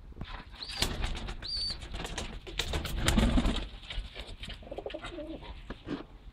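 Pigeons moving and flapping their wings with much rustling, with two short high squeaks about a second in and low cooing calls around the middle and later.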